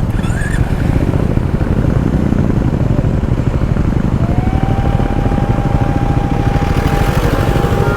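Triumph Scrambler 400X's single-cylinder engine running steadily at low speed. A steady high tone joins about four seconds in and holds.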